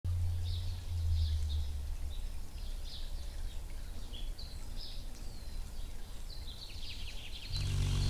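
Short, high bird chirps come and go over a low steady rumble. About seven and a half seconds in, a louder low hum with a rapid buzz sets in: the wings of the adult female Allen's hummingbird as she flies in to the nest.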